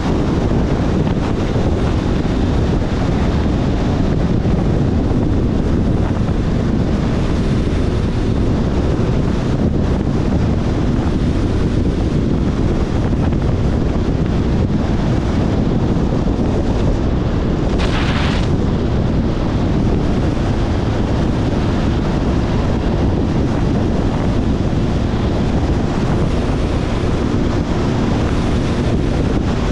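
Steady wind rush buffeting the GoPro's microphone while riding a Kawasaki ZRX1100 motorcycle, its inline-four engine running beneath the wind. A short hiss cuts in a little past the middle.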